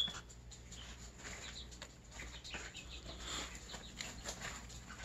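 Serama bantam chickens moving about in wood-shaving litter: faint rustling and pecking with a few soft clucks, and a short high peep right at the start.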